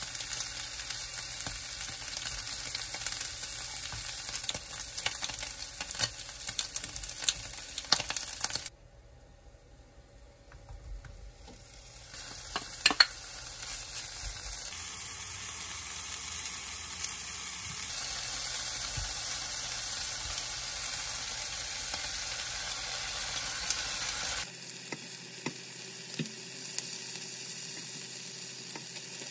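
Meat sizzling as it fries in a nonstick pan, with sharp clicks and scrapes of tongs and kitchen scissors cutting it into small pieces. About nine seconds in the sizzle drops away for a few seconds, then returns as chopped kimchi frying with the meat is stirred with a spatula.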